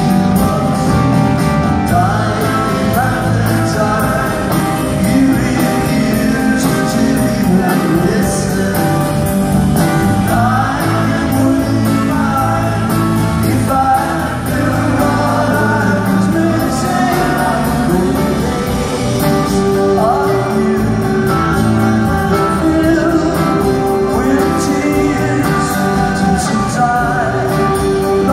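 Live rock band in concert: a male lead singer singing over strummed acoustic guitar, drums and band, heard from the audience with the echo of a large hall.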